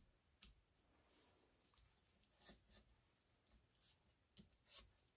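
Near silence, with a few faint rubs and rustles of paper as hands press and smooth a freshly glued paper pocket flat.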